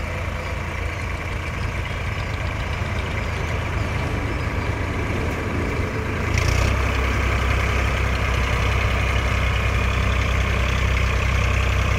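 Eicher 551 tractor's three-cylinder diesel engine running steadily while working a front loader, stepping up in loudness about six seconds in as it is throttled up and stays there.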